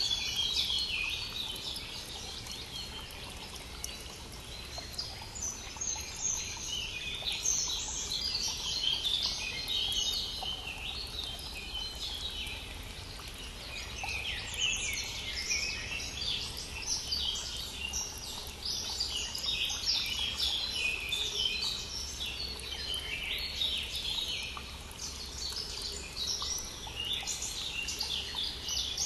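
Many songbirds singing at once, a dense, unbroken mix of overlapping high chirps, over the steady rush of a flowing brook.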